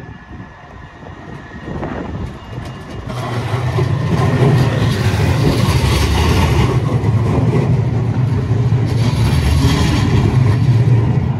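A low-floor electric tram passing close by: the rumble of its wheels on the rails builds about three seconds in and then holds loud and steady.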